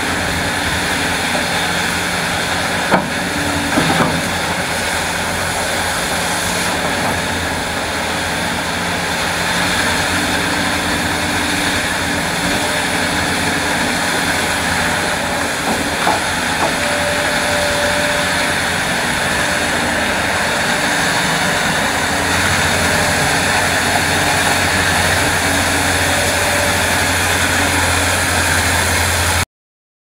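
Large Hitachi hydraulic excavator's diesel engine running steadily under digging load, with a few short knocks. The sound cuts off suddenly near the end.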